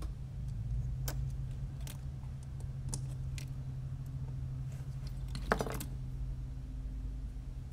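Light clicks and clinks of small drone parts and wiring being handled by hand, with a louder clatter about five and a half seconds in as the quad is lifted and turned. A steady low hum runs underneath.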